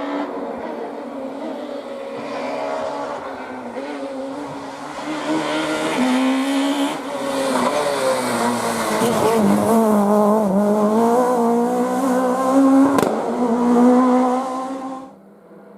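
Rally car engine approaching at speed, its revs rising and dipping with gear changes and braking, growing louder until the sound cuts off abruptly near the end.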